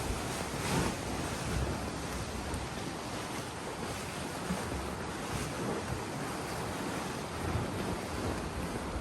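Sea noise with wind buffeting the microphone, a steady rush with low gusts and no clear engine note.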